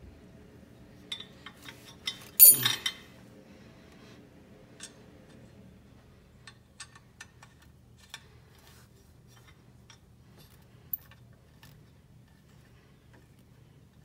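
Small metallic clicks and clinks of a nut and bolt being fitted by hand on a compact tractor's hydraulic pedal return bracket. One louder metallic clank with a brief falling ring comes about two and a half seconds in, then scattered light ticks, over a faint steady hum.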